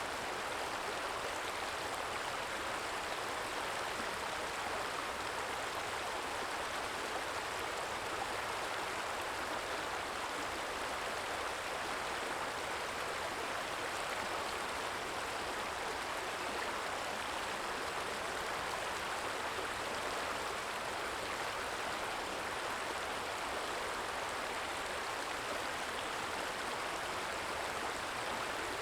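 A small stream trickling steadily, an even, unbroken water sound with no single splashes standing out.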